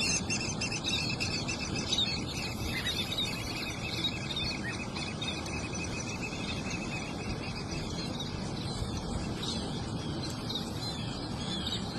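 Birds chirping without a break, a dense run of short high chirps over a steady background noise.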